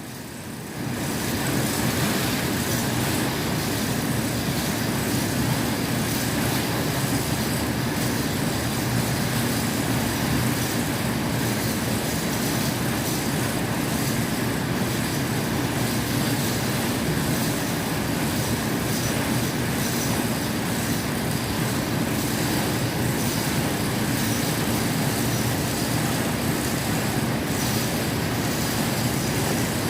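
A machine running steadily with thread spinning on it, making a continuous mechanical rattle and hum that comes up about a second in.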